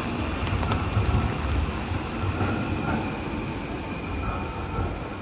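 Heavy rain falling on a city street, with a low rumble of traffic underneath and a few sharp drop ticks. It eases off slightly toward the end.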